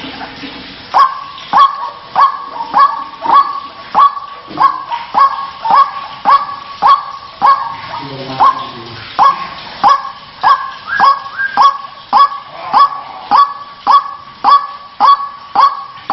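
White-breasted waterhen (ruak-ruak) calling: an even run of short, harsh 'kruak' notes, nearly two a second, starting about a second in. This is its territorial call, used as a lure to bring the bird out of hiding.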